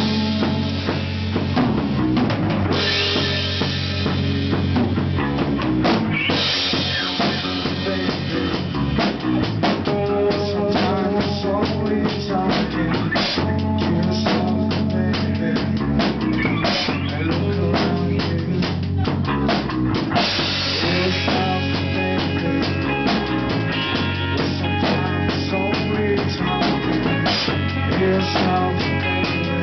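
Rock music played on a full drum kit, with bass drum and snare strikes, over sustained pitched instruments; it runs without a break.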